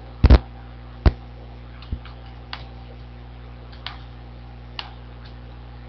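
Computer mouse clicks: a loud double click just after the start, a loud single click about a second in, then several fainter single clicks over the next few seconds, over a faint steady electrical hum.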